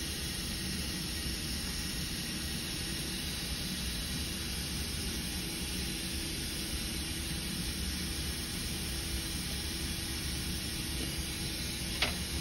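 Steady mechanical hum and hiss of background machinery, with a single short click near the end.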